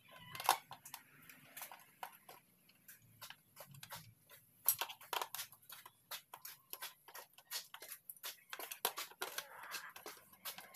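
Socket ratchet clicking in short, irregular runs as bolts on a motorcycle's side panel are loosened, with a few louder metal clicks.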